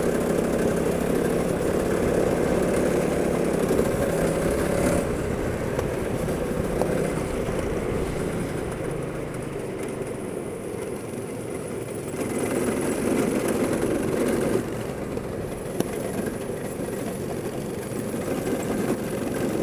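Go-kart engine running, its level and pitch changing with the throttle. It drops about five seconds in, picks up again around twelve seconds, and falls off shortly after.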